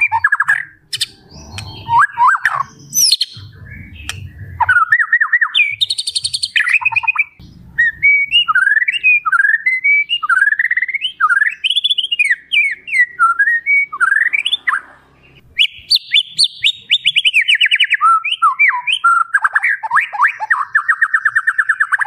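White-rumped shama (murai batu) singing a long, varied song of slurred whistles and quick trills, its 'isian' phrases following one after another. Near the end come fast runs of rapidly repeated notes. There is some low rumbling underneath in the first few seconds.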